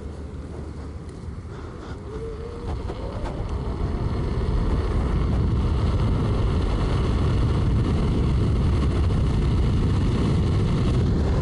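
Wind rushing over the microphone with road rumble during a ride on an electric unicycle. It grows louder about three to four seconds in as the ride picks up speed, then holds steady.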